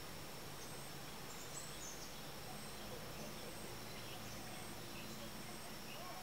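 Quiet outdoor ambience: a steady high insect drone with a faint pulsing tone, and scattered short bird chirps.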